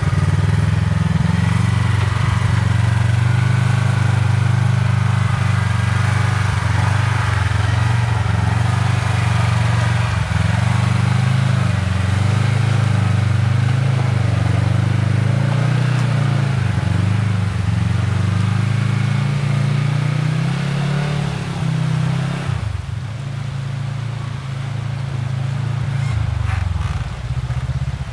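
Kawasaki Teryx KRX side-by-side's engine running steadily under way. About three-quarters of the way through, the engine note drops back and eases off, then picks up again near the end.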